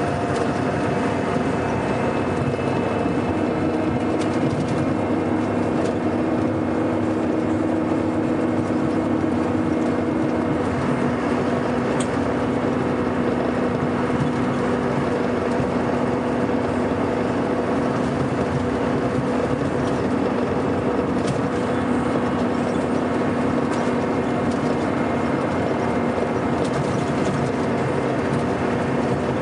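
Scania K420 coach's diesel engine running steadily under way, a constant hum with a slight shift in its note about ten seconds in.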